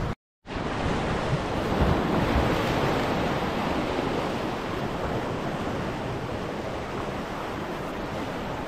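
Sea surf washing over a rock shelf, a steady rush of water with some wind on the microphone. The sound drops out for a moment just after the start.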